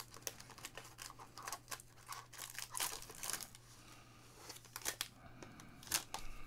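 A foil trading card pack being torn open and crinkled by hand: a quiet run of small, irregular crackles and tearing sounds.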